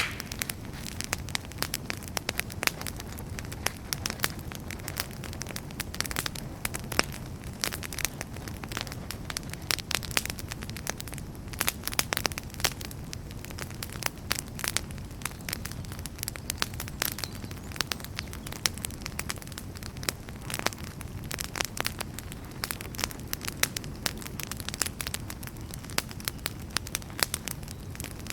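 Wood campfire burning, with frequent sharp crackles and pops over a steady low rumble of flame.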